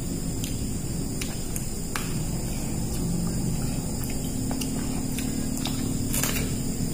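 Faint clicks and taps of people eating with their hands from plates, the clearest about six seconds in, over a steady low hum and a steady high drone.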